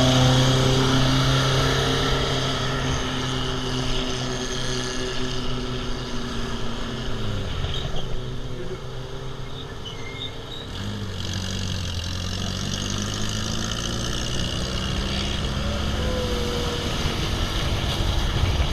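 Off-road vehicle engine running. Its note drops about seven seconds in, then settles lower and steady.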